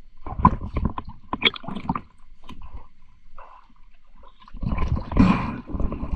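Underwater gurgling and knocking around a diver: a run of irregular clicks and knocks, then a louder rushing gurgle of water from about four and a half seconds in.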